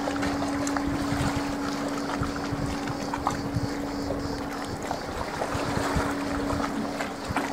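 Wind buffeting the microphone over small sea waves lapping at a concrete slipway, with a steady low hum underneath.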